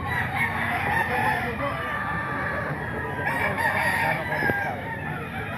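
Many gamefowl roosters crowing and clucking at once, their calls overlapping continuously.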